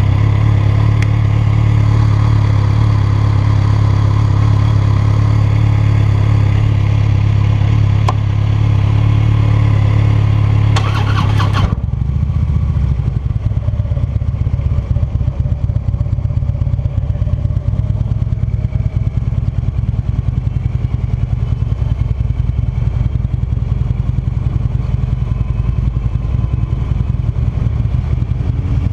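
Cruiser motorcycle engine idling steadily, then pulling away about twelve seconds in; after that the engine runs under way with wind buffeting the microphone.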